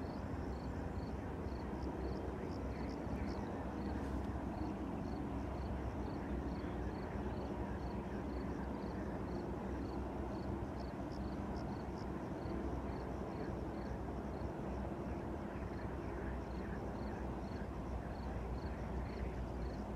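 Open-air ambience: a steady low rumble with a faint, high-pitched chirp repeating evenly, roughly every two-thirds of a second.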